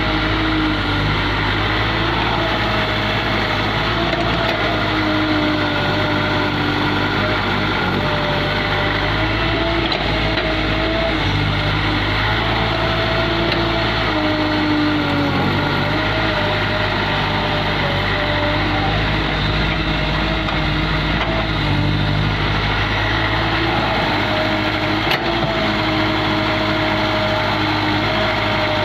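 Caterpillar 365C excavator's diesel engine running steadily, its pitch dipping and recovering now and then as it takes load.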